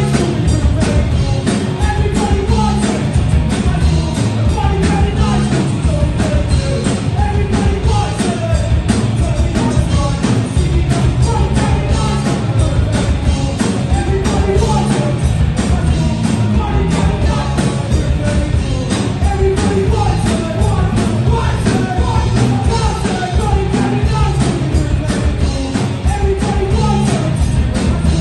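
A rock band playing live: electric guitars and a drum kit with a vocal line over them.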